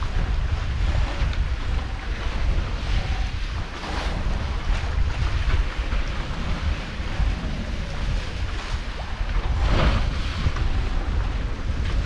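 Wind buffeting the microphone with a steady low rumble, over the rush and splash of waves along the hulls of a sailing catamaran under way. The water rushes louder about four seconds in and again near ten seconds.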